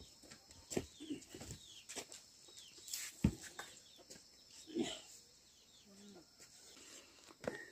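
Faint, scattered short animal calls, high chirps and a few low cluck-like notes, with several sharp clicks in between.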